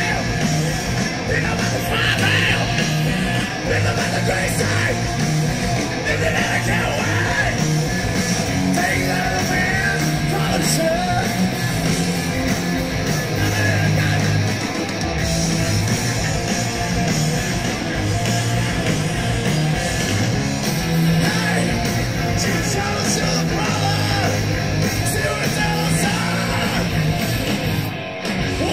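Rock band playing a song live: electric guitar, bass guitar and drums with vocals, captured on an audience recording from the crowd.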